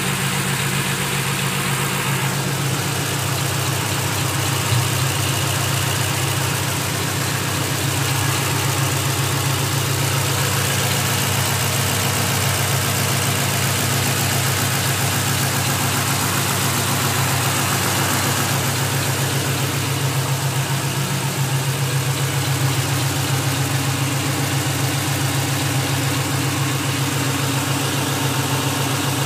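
Ford Mustang engine idling steadily, with a clicking at idle that comes and goes: it clicks, then stops. The cause of the clicking is unknown to the owner.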